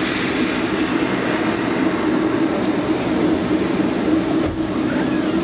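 Engines of a twin-engine jet airliner taxiing, a steady roar with a constant low hum.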